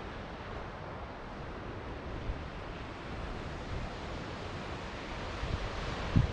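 Ocean surf washing on a beach as a steady rush of water, with wind noise on the microphone. There is a brief low thump near the end.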